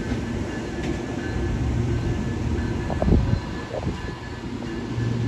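Amtrak bi-level passenger cars rolling past at close range, a steady rumble of steel wheels on the rails, with one heavier thump about three seconds in.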